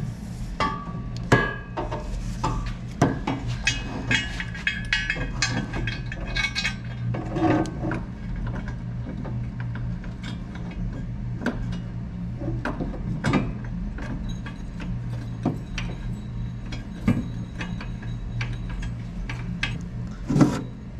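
Steel frame pieces and hand tools clinking and knocking while a frame rail section is shifted and adjusted for a test fit, over a steady low hum. The clinks ring most densely in the first several seconds; after that the knocks come more sparsely.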